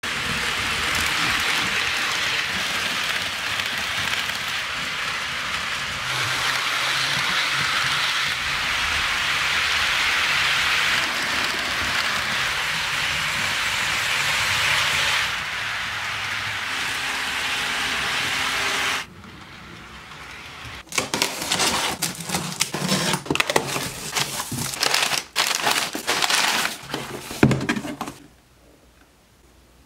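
HO scale model trains running on track, a steady rolling noise. About two-thirds in it gives way to sharp, irregular crackling and crinkling of a cardboard shipping box and brown packing paper being opened.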